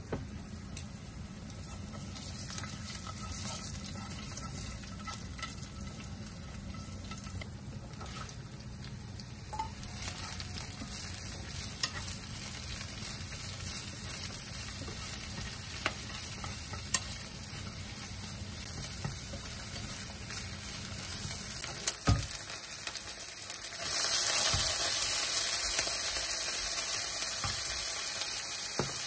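Garlic and chili sizzling gently in oil in a frying pan, with a few sharp clicks of wooden chopsticks against the pan as chopped green onions are stirred in. Near the end the sizzle suddenly turns much louder and hissier as wet, freshly boiled spaghetti goes into the hot pan to be stir-fried.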